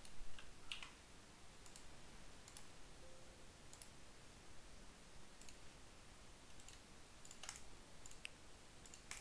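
Computer mouse clicking: faint, sharp single clicks about once a second, a few coming in quick pairs.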